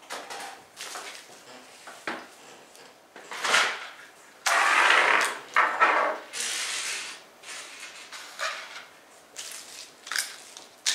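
Packaging waste being gathered up and cleared away by hand: a run of rustling and scraping handling noises, loudest and densest about halfway through.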